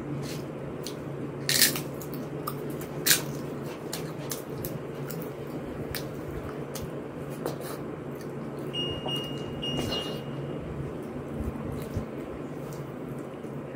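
Eating by hand: two loud crunches of crisp papad being bitten in the first few seconds, then soft squishing of khichuri mixed with the fingers and quiet chewing, over a steady low hum.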